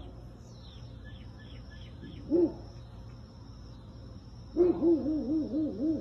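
Bloodhound giving low, hoot-like calls: one short call about two seconds in, then a quavering run of about six rising-and-falling calls near the end. Faint high bird chirps sound in the first second.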